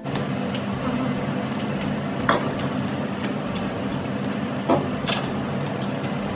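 Steady machine-like running noise with a low hum, broken by a few sharp clicks.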